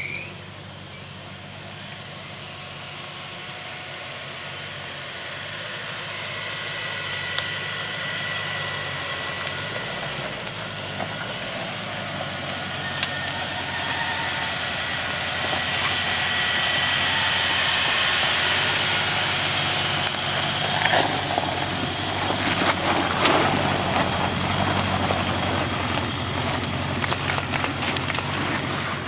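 Off-road 4x4 engine running steadily, getting gradually louder over the first twenty seconds or so, with scattered knocks and rattles in the later part.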